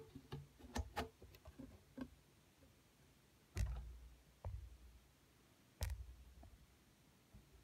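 Fingers tapping and handling a phone mounted on a small telescope, picked up by the phone's own microphone: a run of light clicks in the first two seconds, then three heavier knocks with a low thud in the second half.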